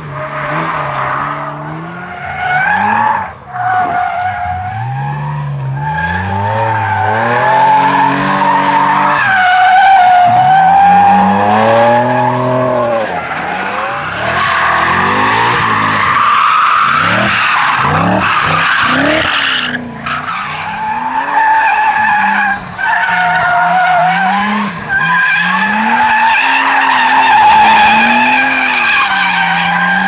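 Drift cars sliding through a corner, one after another. The engines rev hard and rise and fall with the throttle over tyre squeal from the spinning rear wheels.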